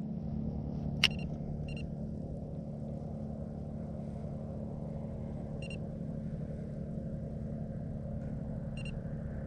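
A motor running steadily with a low, even hum. There is a single sharp click about a second in and a few short, high electronic beeps.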